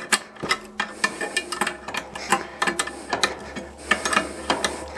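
Irregular metallic clicks and ticks, several a second, from a spanner working the nuts on the threaded rods that hang a metal loft-ladder frame, drawing the frame up into the ceiling opening.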